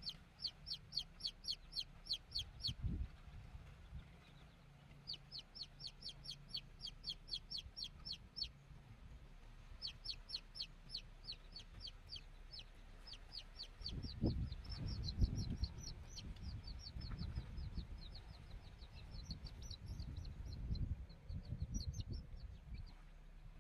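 A young chick peeping loudly and over and over: short, high cries that fall in pitch, about three a second, in runs broken by brief pauses, the sound of a distressed chick. A low rumbling noise joins in the second half.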